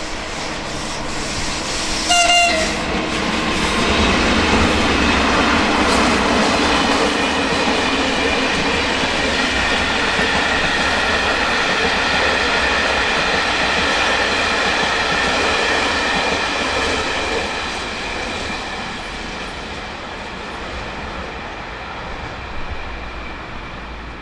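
Train horn gives a short toot about two seconds in, then a train passes, with wheel noise and several steady high tones over the rumble. The passage fades over the last several seconds.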